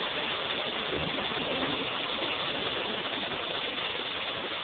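Heavy hail falling steadily on roofs, pavement and grass: a dense, even patter with no single hits standing out.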